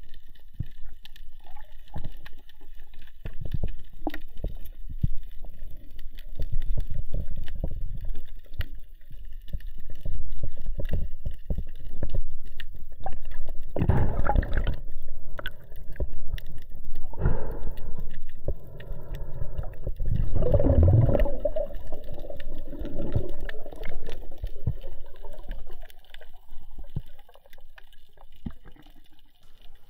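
Underwater sound from a freediver's camera: a muffled low rush of water with many small knocks as he swims, and louder gurgling surges about halfway through and again a few seconds later.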